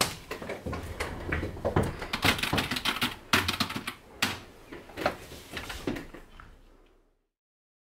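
Fast, irregular typing on a computer keyboard, a rapid patter of key clicks that dies away to silence about seven seconds in.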